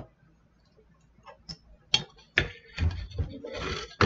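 A few sharp clicks and knocks from small objects being handled at a table, then about a second of rustling just before a last click at the end.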